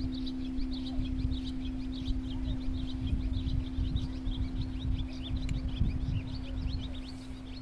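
A crystal singing bowl's steady, pure ringing tone sustains, while birds chirp rapidly and high over a low rumble.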